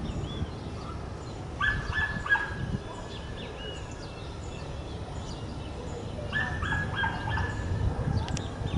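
A dog barking in two quick runs of about four high-pitched barks, one about a second and a half in and another near the end, over a low rumble of wind on the microphone.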